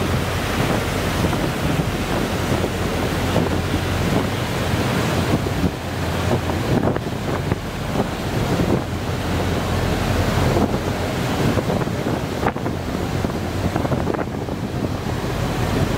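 Water churning in the wake behind a moving boat, with wind rushing on the microphone, over a steady low drone from the boat's engines.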